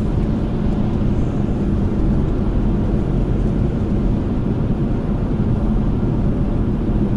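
Steady low road and tyre rumble heard inside the cabin of a Toyota Celsior cruising at expressway speed on Bridgestone Regno GR-XII tyres in a tunnel.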